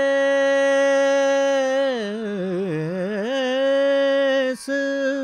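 A male voice singing a thumri (a jhula in raag Desh). He holds a long steady note, breaks into a wavering ornamented run about two seconds in, returns to the held note, and slides down near the end.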